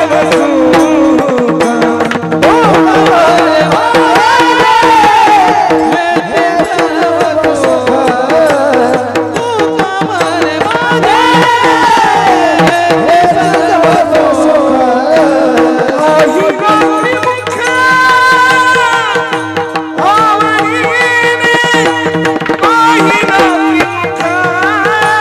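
Male devotional kirtan singing: a single voice sings a gliding, ornamented melody over a steady held drone, with hand-drum strokes keeping the rhythm.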